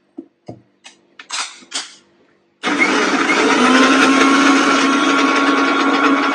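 A few clicks and clatters as the steel lid is fitted onto a mixer-grinder jar. About two and a half seconds in, the electric mixer grinder starts and runs steadily with a constant motor hum, blending pancake batter.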